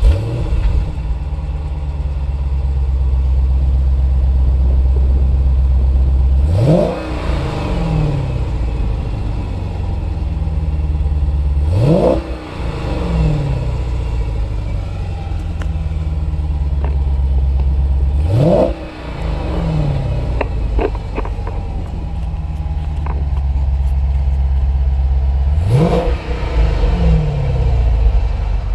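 2014 Dodge Charger SRT8's 6.4-litre HEMI V8 idling and being revved four times, each rev climbing quickly and then falling back to idle.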